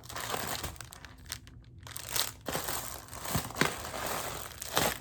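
Packaging crinkling and rustling as items are pulled from a box of jewelry, with several sharp clicks along the way.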